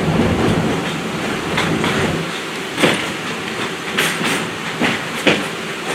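Passenger train riding along the track: a steady rolling noise with irregular clacks and knocks from the wheels and car. The low rumble drops away about two seconds in.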